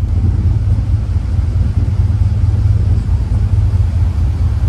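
Steady low rumble of a ferry underway, its engines droning evenly.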